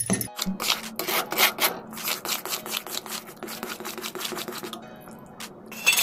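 Steel spatula scraping and stirring thick khoya-and-sugar-syrup mixture around a metal kadhai in quick repeated strokes, as the mixture is worked until it thickens. The strokes ease off near the end, then one sharper, louder scrape comes just before the end.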